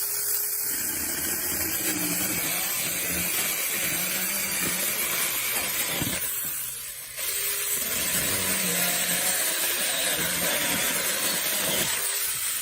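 Battery-powered 4-inch mini chainsaw running and cutting through dead arborvitae branches, a steady high buzzing hiss. It eases briefly about seven seconds in, then picks up again.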